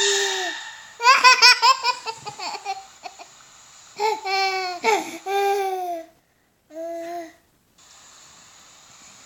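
Baby laughing: a quick run of high-pitched giggles about a second in, then longer drawn-out laughing squeals and one short call, with pauses between.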